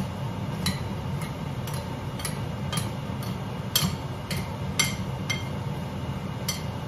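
A spoon clicking against a bowl about twice a second while sliced apples are stirred, over a steady low hum.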